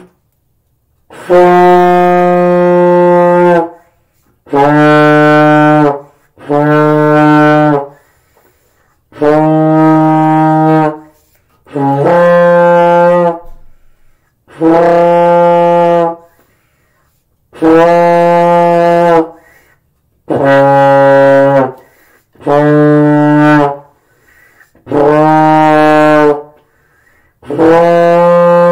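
A beginner playing a euphonium: about eleven long held notes, each roughly two seconds, with short breaths between them, moving back and forth between a couple of nearby low pitches.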